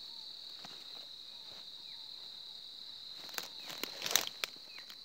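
An insect keeps up a steady high-pitched buzz. A few crunching footsteps on dry ground and brush come about three to four and a half seconds in.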